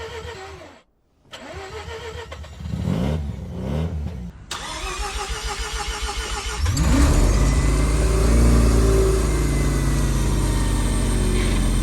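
Rotary car engine being cranked over by the starter in uneven bursts, then catching about seven seconds in and running loud and steady: a cold start.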